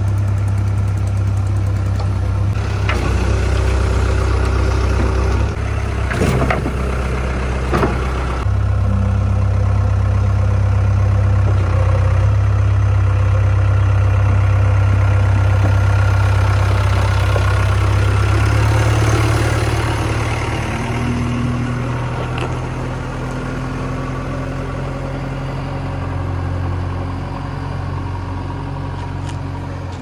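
Diesel engine of a JCB 3DX backhoe loader running steadily, with a few sharp knocks in the first eight seconds. The engine note shifts slightly about 8 s in and grows quieter about two-thirds of the way through.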